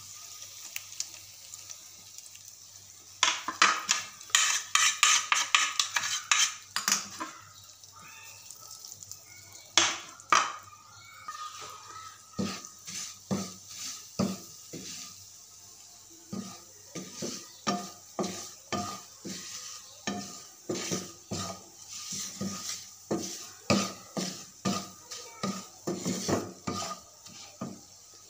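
Wooden spatula stirring and scraping dry spices (coriander, red chili, turmeric, fenugreek, cumin) frying in oil in a non-stick pan, knocking against the pan with each stroke over a light sizzle. The strokes come fast about 3 to 7 seconds in, then, after a pause, settle into a regular stroke about twice a second.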